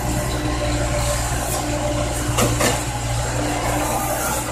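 Komatsu PC70 excavator's diesel engine running steadily under working load, with a tone that comes and goes above the hum. A couple of short sharp knocks come about two and a half seconds in.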